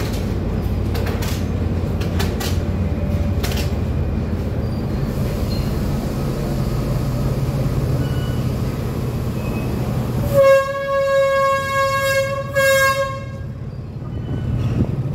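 Sri Lanka Railways S8 diesel multiple unit running with a steady low diesel rumble as it shunts slowly. About ten seconds in its horn sounds one long blast, a single steady tone lasting about three seconds.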